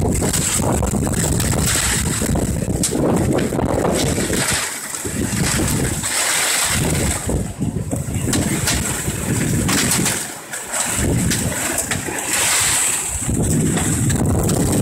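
Severe thunderstorm wind blowing hard in gusts and buffeting the microphone with a loud rumble, easing briefly a few times.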